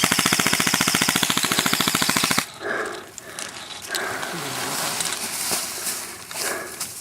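Airsoft electric rifle firing one rapid full-auto burst of about two and a half seconds, then cutting off sharply; fainter scattered sounds follow.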